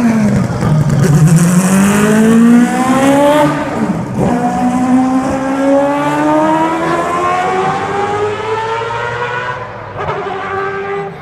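Mazda 787B's four-rotor rotary engine accelerating hard with its distinctive high-pitched wail. It climbs in pitch, drops sharply at the upshifts near the start and about four seconds in, and climbs again. It fades near the end as the car moves away.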